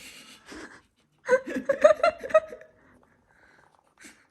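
A person laughing: a brief sound at the start, then a run of short, quick laughing bursts about a second in.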